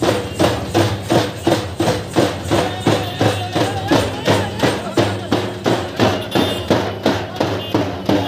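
Dappu frame drums beaten with sticks in a fast, steady rhythm, with crowd voices underneath.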